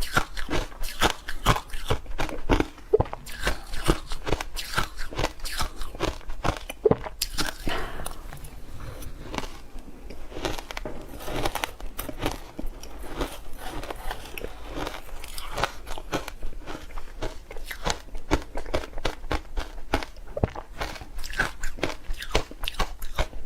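Ice being bitten and chewed: a dense run of crisp, sharp crunches and cracks, many to the second, with a slightly sparser stretch partway through.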